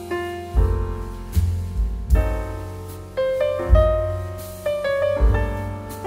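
Background piano music: struck notes that fade, over low bass notes at a steady, unhurried pace.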